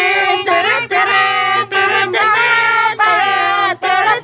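Singing voices holding long notes, each broken off by a short gap about every second.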